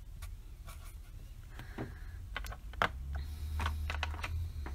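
Permanent marker on paper: brief writing strokes, then a run of light clicks and taps as the pen is handled and put down, over a steady low hum.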